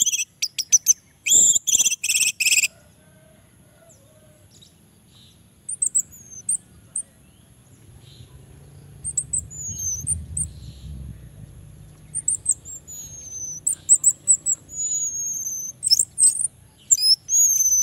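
Orange-headed thrush singing. It opens with a loud burst of rapid harsh notes in the first couple of seconds, then gives a string of thin, high whistled phrases that slide down in pitch, growing busier toward the end. A faint low rumble runs underneath around the middle.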